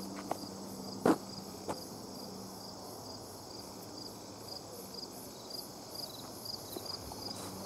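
Insects chirping: a steady high-pitched chorus with a regular train of short chirps, several a second, growing clearer in the second half. A single sharp knock about a second in is the loudest sound.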